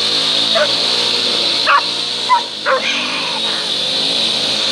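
Small motorcycle engines running while the bikes are ridden through mud, with a few short high-pitched yelps over them.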